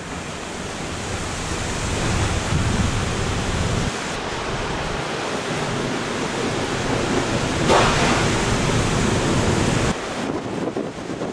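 Heavy surf pounding in typhoon winds, with wind buffeting the microphone. There is a sharp, loud burst about two-thirds of the way through, and the low rumble drops off suddenly near the end.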